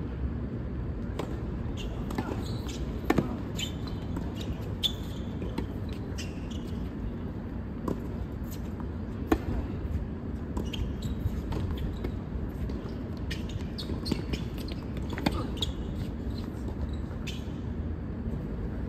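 Irregular sharp knocks of a ball being struck or bouncing in a large indoor hall, over a steady low background hum.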